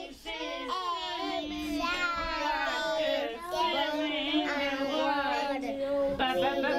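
Young children singing together, several high voices overlapping and holding some notes.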